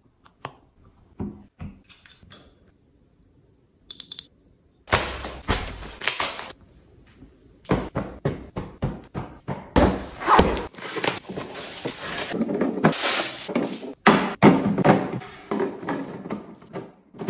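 Hands handling household items and setting them down on a stone countertop: clear plastic containers, glass jars and folded towels. A few light taps come first, then from about five seconds in a dense run of knocks and clunks with rustling.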